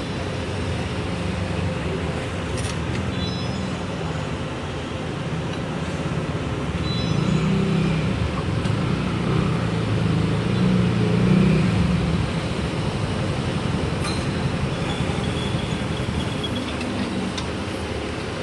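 Steady street traffic rumble, swelling for a few seconds in the middle as a louder vehicle passes.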